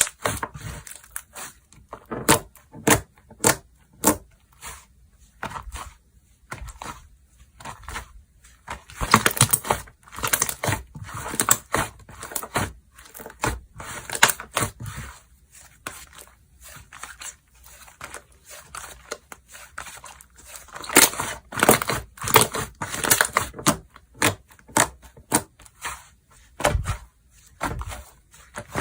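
Slime being squeezed, stretched and poked by hand, making irregular sharp pops and clicks with denser stretches of crackling.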